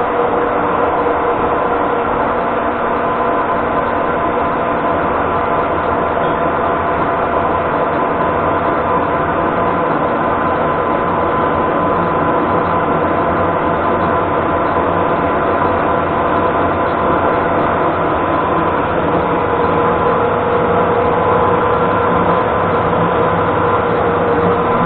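Metal-turning lathe running: a steady mechanical drone with a whine from the headstock gears.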